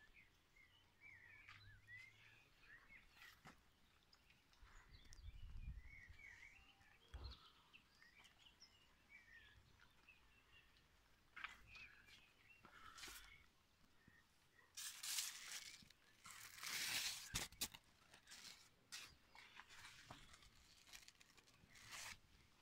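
Faint bird chirps on and off in the first half. Then a few seconds of rustling about 15 to 18 seconds in, as cucumber leaves brush against the handheld camera.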